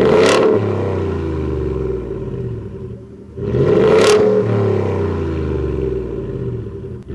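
Ford F-150 engine revved twice through a Borla S-Type cat-back exhaust with dual black tips, once at the start and again about three and a half seconds in. Each rev climbs quickly and then falls back toward idle, with a deep, rowdy tone.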